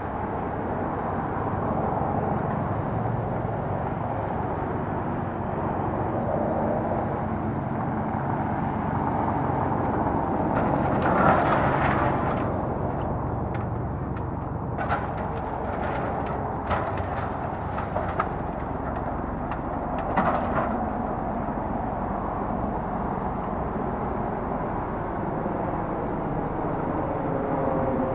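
Excavator engine running steadily during a house demolition, with a crash of debris about eleven seconds in and a run of sharp knocks and bangs of the structure being broken up a few seconds later.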